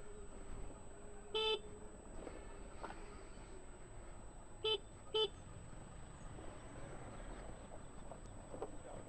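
A vehicle horn beeps three times in a traffic jam: one short beep about a second and a half in, then a quick double toot near the middle. Low, steady traffic noise runs underneath.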